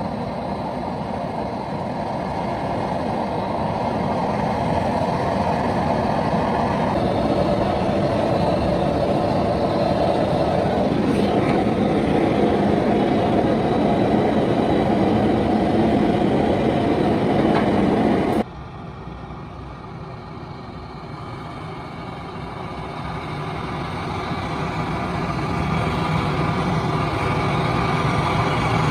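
Steady rushing noise of a handheld gas torch flame heating a cast iron piston for welding. The sound drops abruptly about two-thirds of the way through, then builds back up.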